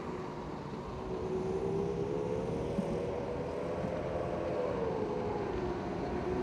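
Racing powerboat's outboard motor running at speed, its engine note rising about a second in, holding, then falling a little after four seconds, over a steady rushing noise.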